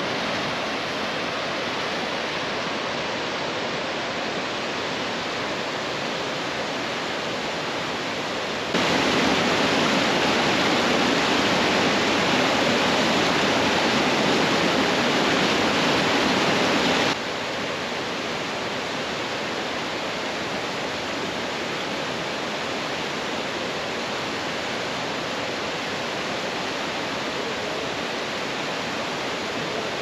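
Mountain stream rushing over boulders in small cascades: a steady rush of water. For several seconds in the middle it is louder, starting and stopping abruptly.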